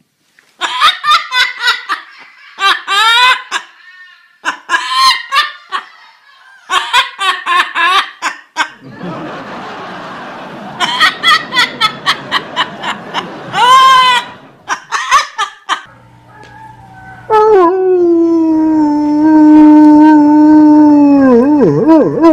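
An Amazon parrot imitating human laughter in quick runs of cackling bursts. Then a dog gives one long, steady howl of about four seconds that wavers and falls away at the end.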